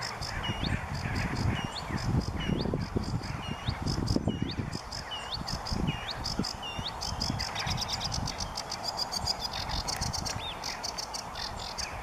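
Sedge warbler singing: a fast, scratchy chatter of clicking notes, with a rising whistled note repeated about twice a second through the first half and the chatter growing denser near the end, over a low rumble.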